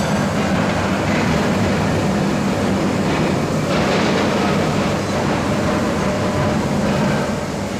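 Machinery running with a steady, loud drone and hum.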